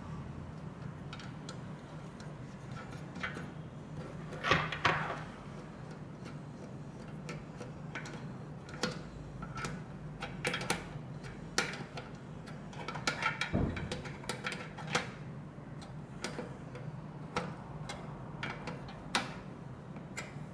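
Scattered, irregular clicks and knocks of metal parts and a hand tool as a nut is fitted and tightened on a manual string hopper machine, over a steady low hum.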